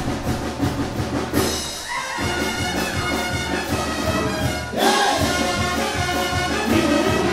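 Mexican banda music: trumpets and trombones playing over a steady, quick beat.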